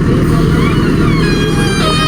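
JCB backhoe loader's diesel engine running steadily, a dense low rumble. Thin high gliding tones come in over it about a second in.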